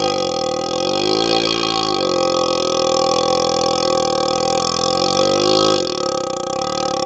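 A long, unbroken burp forced through a hollow vacuum-cleaner extension tube, the tube's resonance giving it a droning, hollow tone. The pitch wavers over the first two seconds, then holds steady, and the lowest part drops away about six seconds in.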